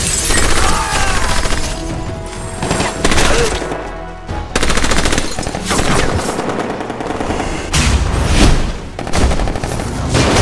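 Film battle sound effects: repeated gunshots and bursts of automatic gunfire, with a fast run of rapid fire about five seconds in.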